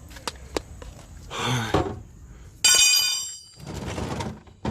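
Metal tools being handled, with a few light clicks and then a sharp metallic clank about two and a half seconds in that rings on briefly as it dies away.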